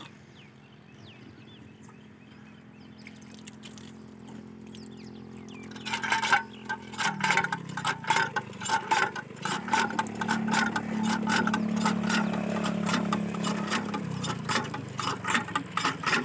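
A steady low motor hum that grows louder, drops in pitch about seven seconds in and swells again later. From about six seconds in, rapid, irregular clicking and clinking runs over it.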